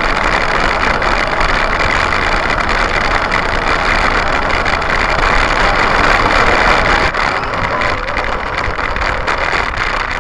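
RC truck's motor and drivetrain running hard, picked up by a camera mounted on the truck itself: a loud, steady noise that cuts off abruptly at the very end.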